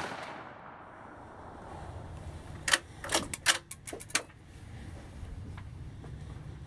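Bolt of a Savage B-Mag .17 WSM bolt-action rifle being worked: a quick run of about seven sharp metallic clicks over a second and a half, about three seconds in, as the spent case is ejected and a fresh round chambered. At the start, the echo of the previous rifle shot fades away.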